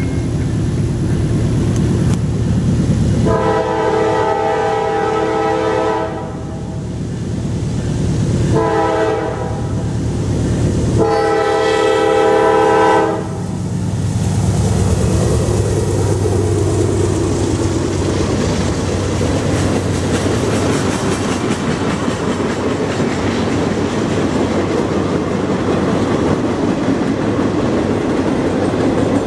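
Diesel freight locomotive horn sounding a long blast, a short blast and a long blast, the end of a grade-crossing warning. Then the lead locomotive's engine passes and a welded rail train's cars roll by with steady wheel and rail noise and clickety-clack.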